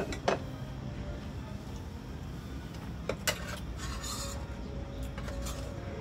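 Metal spoon and ladle clinking and scraping against a stew pot and small bowls as food is scooped out. There are two sharp clinks at the start, two more about three seconds in, and lighter scrapes after.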